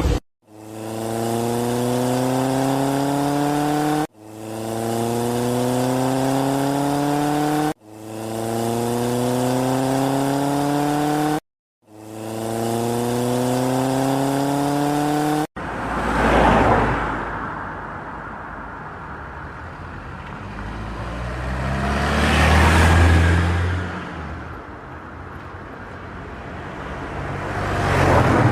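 Vehicle engine sound played four times over, identically: each time a rising rev that starts up and cuts off abruptly, with brief silence between. Then three swelling and fading rushes like vehicles driving past.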